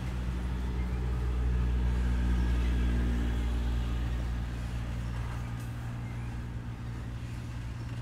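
Train rolling past: a deep rumble with a steady low hum, loudest about two to three seconds in, then slowly fading as the train moves off.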